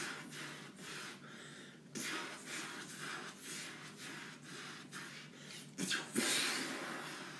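Mouth-made blaster and gunfire sound effects: a string of breathy hissing bursts, loudest near the start and again about six seconds in.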